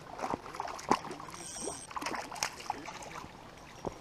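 A hooked brook trout splashing at the pond's edge as it is landed, with scattered knocks and scuffs of boots on rock. A last single knock comes near the end.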